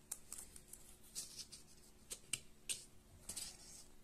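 Faint scratching and ticking of 22-gauge copper winding wire being pulled tight and wrapped by hand around the poles of a small 12 V DC motor armature, in scattered short clicks and rustles. A faint steady low hum runs underneath.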